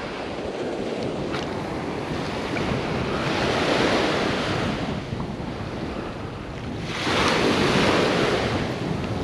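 Small waves breaking and washing up a sandy beach, swelling louder about a third of the way in and again about three-quarters through, with wind buffeting the microphone.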